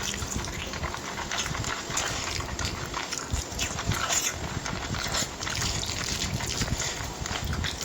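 Close-miked wet chewing and lip smacking of a person eating, a steady run of irregular mouth clicks and squelches.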